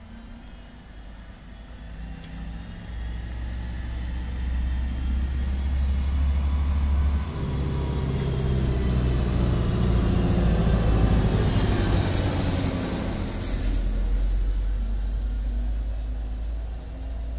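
A heavy road vehicle's engine passing by: it builds up over several seconds, stays loud through the middle and fades away near the end. About two-thirds of the way through there is a short, sharp hiss.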